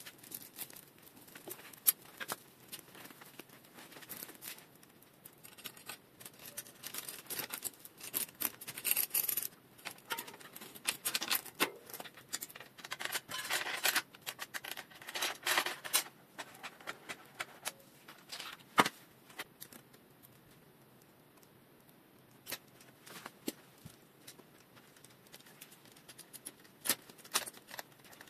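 A new bicycle chain being threaded by hand through a mountain bike's rear derailleur and over the cassette: links clinking and rattling in irregular runs of sharp metallic clicks, busiest in the middle and dying down to a few clicks later on.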